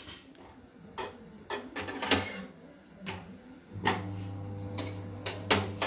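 Kitchen utensils handled while cooking chapatis: scattered clicks and knocks of a steel plate and a tawa. A little before four seconds a steady low hum sets in and keeps going.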